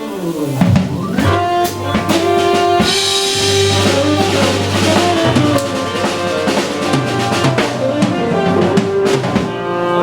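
Live jazz combo playing: organ, tenor saxophone, electric guitar and a drum kit, with sustained melodic notes over a steady drum groove.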